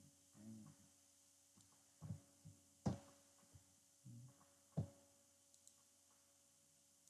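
Faint knocks and soft thumps, the sharpest about three seconds in, over a steady low electrical hum.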